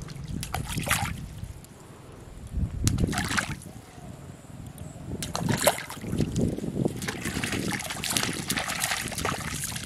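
Muddy pond water splashing and trickling in several short bursts at the bank, with a longer stretch of splashing near the end.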